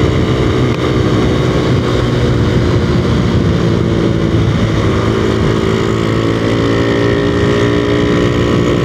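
Honda Revo Absolute underbone motorcycle with a Tsukigi aftermarket exhaust, its single-cylinder four-stroke engine running at a steady cruise with a little wind on the microphone.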